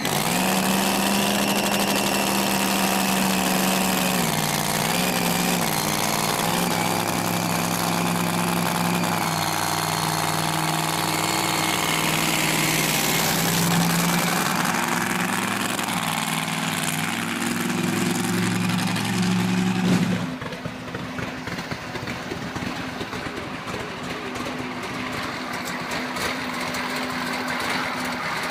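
Supercharged drag-race Camaro engine firing up right at the start, then running at a lumpy idle with its pitch shifting a few times as the car pulls away. About 20 seconds in it cuts abruptly to a different turbocharged engine idling, quieter and steadier.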